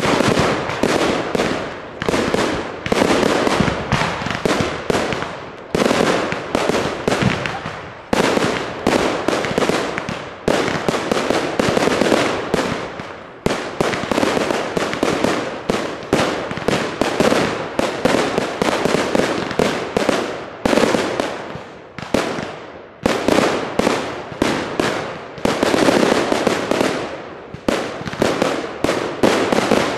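Fireworks display firing a continuous rapid barrage: aerial shells and comets launching and bursting, several bangs a second, each dying away quickly before the next.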